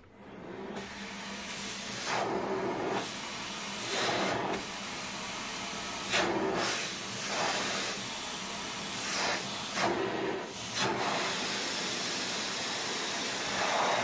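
Philips Marathon Ultimate FC9924 bagless vacuum cleaner switched on for a test run after reassembly with a new filter. Its motor and rushing airflow come up within the first second, then the sound swells and drops back several times. It is pulling with good suction.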